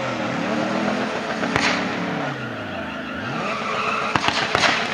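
Chevrolet Camaro SS's 6.2-litre V8 doing a burnout: the engine revs up and down several times while the rear tyres spin and squeal against the pavement. A few sharp cracks come near the end.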